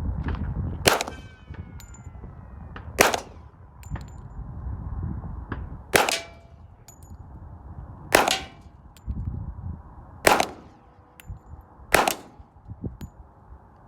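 Springfield XD Tactical .45 ACP pistol fired six times, about two seconds apart, with a metallic ringing and faint pings from struck steel targets after the shots.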